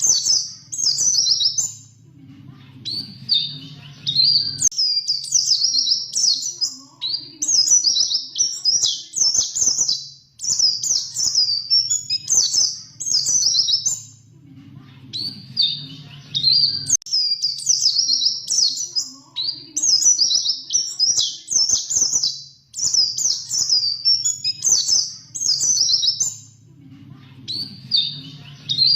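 White-eye (pleci) singing: rapid, high, twittering and trilling phrases in bursts of a few seconds with short pauses, the same sequence repeating about every twelve seconds.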